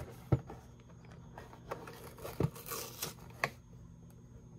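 Cardboard cereal box being opened by hand: the glued top flaps pulling loose with a few sharp snaps, the loudest about a third of a second in, and a short tearing rasp a little before three seconds in.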